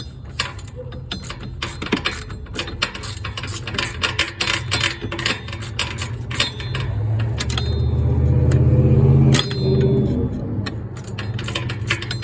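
Metal clicks and clinks of hand tools and parts being handled during a starter replacement, over a steady low hum. From about seven seconds in, a pitched buzzing grows louder, then stops abruptly about two seconds later.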